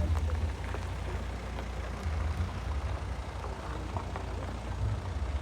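Wind rumbling and buffeting on the microphone in uneven gusts, with faint scattered steps on a stony path.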